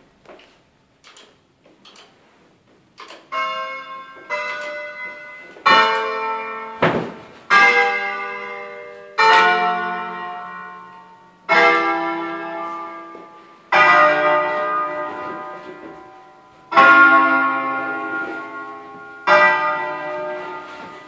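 Eight church bells tuned in D-flat, cast by L. D'Adda in 1954, played as a festive concerto. A few faint strokes come first, then loud strokes build up from about three seconds in and fall every two to three seconds, each one ringing on and dying away.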